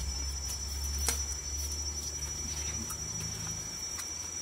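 Steady high-pitched insect drone from the surrounding forest, over a low rumble, with a few scattered faint clicks, the sharpest about a second in.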